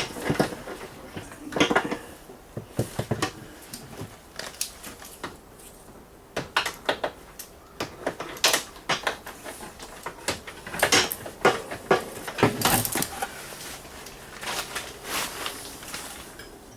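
Hand tools clinking and knocking on metal in irregular bursts while bolts are worked loose on a riding lawn mower.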